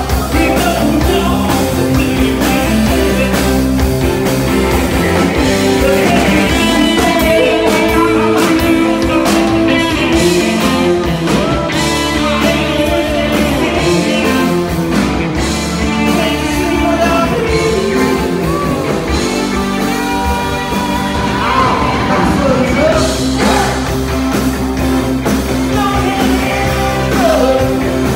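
A live band playing loud rock music, with a singer on a microphone.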